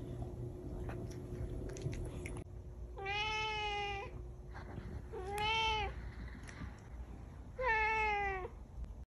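A domestic cat meowing three times, a little over two seconds apart, each meow under a second long and the last one falling in pitch at its end.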